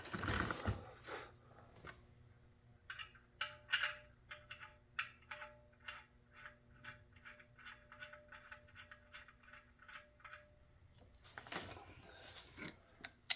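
Faint, regular series of small clicks, about three a second, that stops about three-quarters of the way through.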